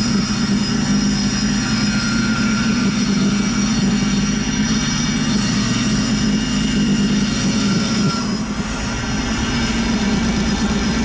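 Steady machine drone, like a motor running without a break, with a brief small dip about eight seconds in.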